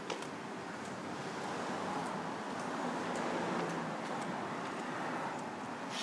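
Street traffic noise: a steady wash of passing cars that swells a little through the middle.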